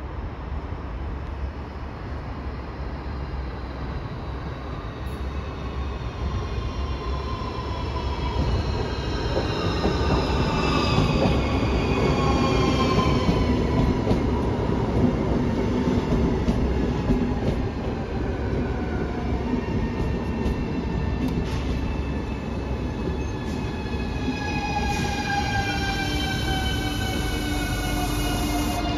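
ES2G Lastochka (Siemens Desiro) electric multiple unit arriving and braking alongside the platform: wheels rumbling on the rails and an electric whine from the traction drive that falls steadily in pitch as the train slows. It grows louder as the train comes level, and a steady low hum joins near the end.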